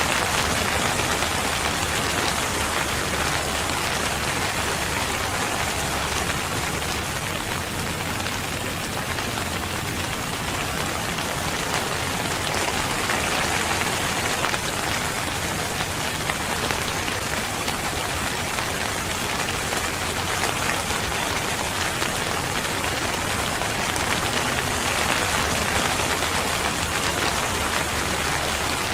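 Steady rain falling on a surface, a dense even patter with no letup.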